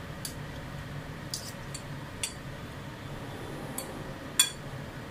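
Metal tongs and a fork clinking against a ceramic plate while shredding boiled chicken, with scattered short clinks, the loudest near the end.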